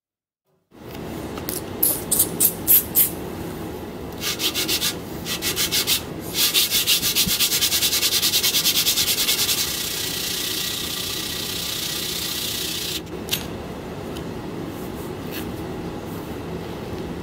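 Hardened 52100 steel knife blank hand-sanded on sandpaper laid on a flat steel plate: scratchy back-and-forth strokes, starting just under a second in. The strokes are separate at first, then quick and even, then turn to softer, steadier rubbing after a short pause.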